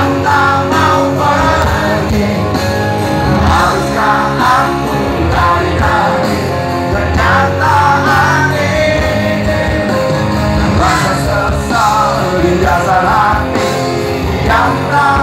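A live band playing a rock song with a singing voice, loud and continuous, heard from far back in the crowd through a phone's microphone.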